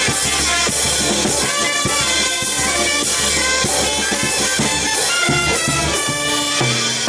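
Banda orquesta playing: trumpets and other brass over a drum kit keeping a quick, steady beat, closing on a long held chord near the end.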